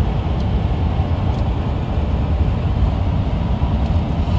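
Car driving along a highway, heard from inside the cabin: a steady low road rumble.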